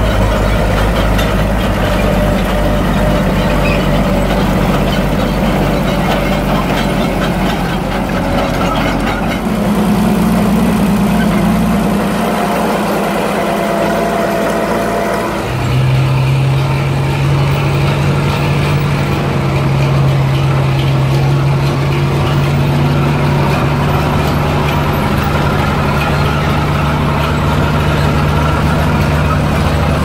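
Gasoline engine of a vintage Lombard log hauler running. About halfway through, the sound changes to the steady, even idle of the 1934 Lombard log hauler's engine.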